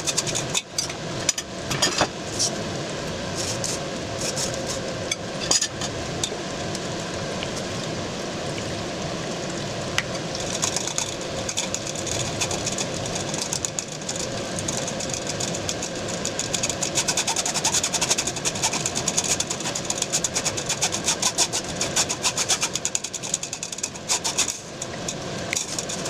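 A spoon rubbing cooked blackcurrants through a fine metal mesh sieve, with fast scraping strokes against the wire. The strokes come thicker and quicker from about ten seconds in. This is the pulp being pressed through to make jam, leaving the skins and seeds in the sieve.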